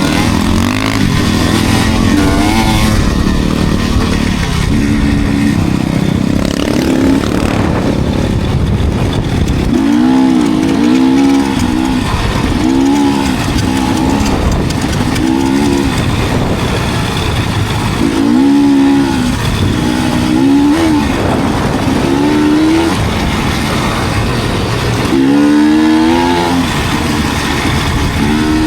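Enduro dirt bike engine being ridden, its pitch climbing and dropping again and again as the throttle is opened and closed, over a steady rumble and wind noise.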